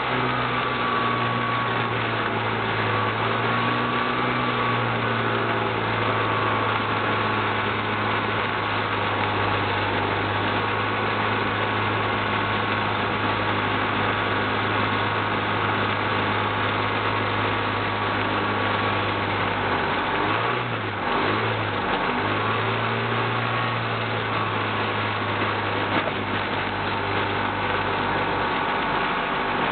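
Himax ultralight airplane's engine running steadily as the plane taxis. About two-thirds of the way through, the engine note briefly drops and wavers, then comes back up to its steady pitch.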